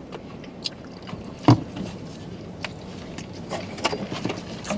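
People chewing and eating fries, with wet mouth sounds, scattered small clicks and light rustling of a paper food box, and one louder smack about a second and a half in.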